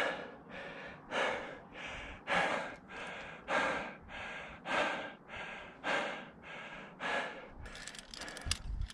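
A climber breathing hard and evenly through the mouth while leading a granite pitch, a loud breath and a softer one in turn, about one full in-and-out every second or so. A few light clicks of gear near the end.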